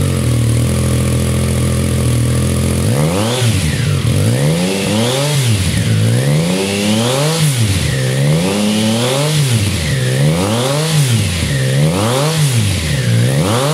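Triumph Tiger Sport 660's three-cylinder engine through a GPR M3 Poppy low-position slip-on exhaust, idling steadily at first. About three seconds in it starts being revved again and again, each blip of the throttle rising and falling in pitch.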